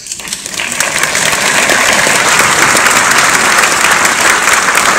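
Audience applauding: the clapping swells over about the first second and then holds steady.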